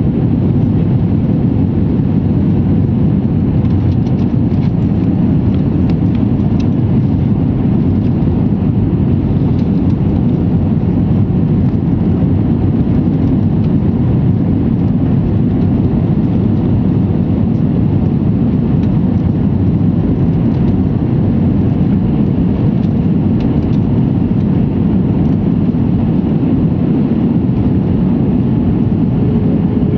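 Steady cabin noise inside an Airbus A320 airliner on its landing approach: its twin jet engines and the rushing air blend into an even, low, deep rumble.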